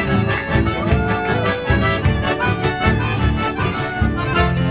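Background music with a steady beat and sustained melodic notes over a pulsing bass line.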